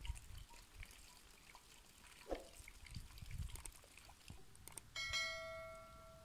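Soft knocks and scrapes of a spatula in a metal cooking pot, then about five seconds in a single clear bell-like ding that rings and fades over about a second and a half: the notification-bell sound effect of a subscribe-button overlay.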